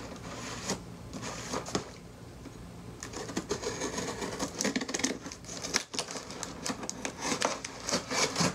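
A sharp knife cutting through a cardboard box: a run of short scratchy slicing strokes and small clicks, coming faster and busier from about three seconds in.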